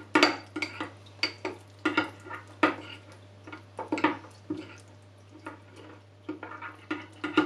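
Spoon stirring melted butter with garlic paste and chopped coriander in a small bowl, clinking and scraping against the bowl about once or twice a second, the strokes fainter in the second half. A steady low hum runs underneath.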